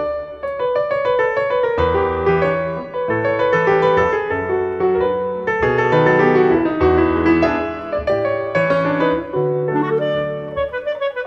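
Instrumental background music with piano: a melody over changing bass notes.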